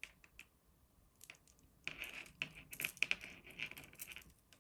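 Strung glass beads clicking and rattling against each other as they are handled: a few light clicks, then a dense clatter of small clicks lasting about two and a half seconds.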